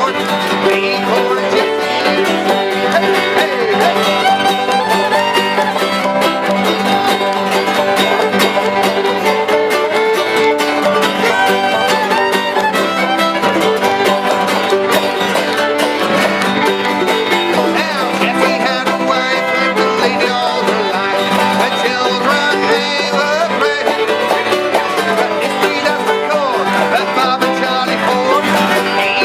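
Background music: an upbeat bluegrass-style tune with fiddle and banjo, playing steadily throughout.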